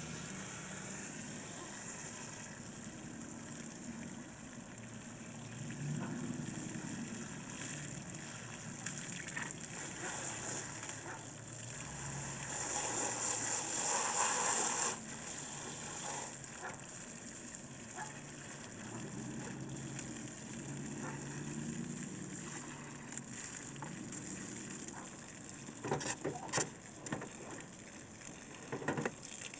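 Garden hose spraying water onto a window air conditioner's coils, rinsing off acid coil cleaner. The spray grows louder for a few seconds about halfway through, and several sharp knocks come near the end.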